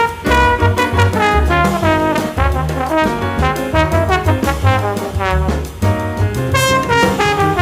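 Background music led by brass instruments, with a steady bass line.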